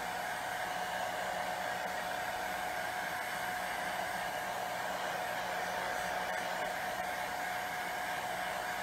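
Hand-held hair dryer running steadily: an even rush of air with a constant whine in it, blowing on a wet rabbit's fur.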